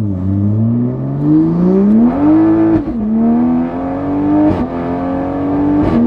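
Turbocharged B58 inline-six of a Toyota Supra with an upgraded Pure 800 turbo, accelerating hard through the gears. The engine note climbs in pitch and drops at each upshift: right at the start, about three seconds in, then twice more about a second and a half apart, with a short crack at the last two shifts.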